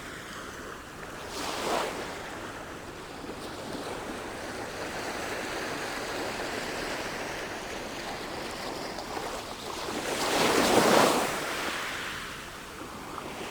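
Waves washing onto a shore, a steady rush of surf that swells with a large wave about ten seconds in.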